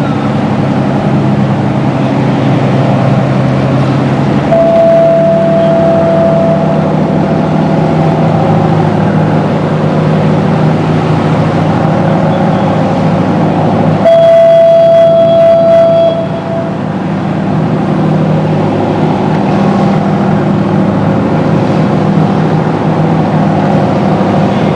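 Detroit Diesel engines of a crew boat running steadily, rising in pitch about four seconds in as the throttle is opened. A platform fog horn sounds a steady single-note blast about five seconds in, a louder one about fourteen seconds in lasting two seconds, and starts again at the end.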